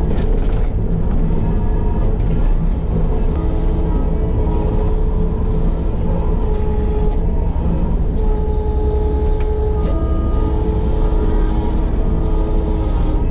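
Case TV450 compact track loader's diesel engine running steadily at working revs, with higher whines at a few pitches that come and go as the machine works.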